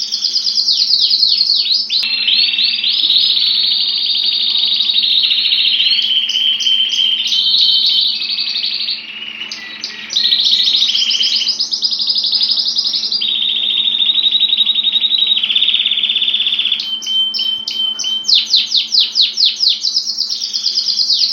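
Domestic canary singing: long runs of fast repeated high notes, each run held at one pitch before switching to another. A brief pause comes about nine seconds in, and slower separate falling notes come near the start and the end.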